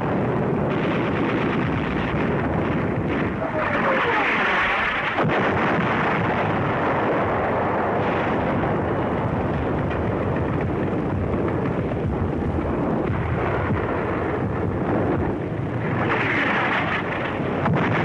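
Artillery barrage: a continuous rumble of gunfire and shell bursts, swelling louder about four seconds in and again near the end.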